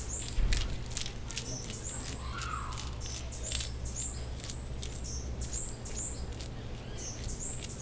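A short, high-pitched falling chirp repeated about every half second, from a small creature in the surrounding forest, with sharp dry clicks in between.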